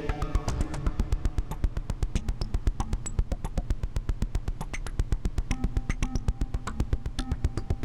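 Groove Synthesis 3rd Wave wavetable synthesizer playing a factory patch: a fast, even pulse of short clicking notes over a steady low bass, with a few brief pitched notes now and then.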